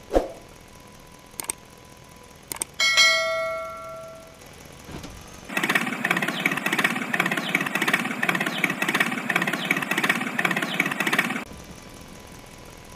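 A thump, then a bell-like ding about three seconds in that rings for over a second. From about five and a half seconds a small toy-tractor motor runs with a rapid rattling whir for about six seconds and then stops suddenly.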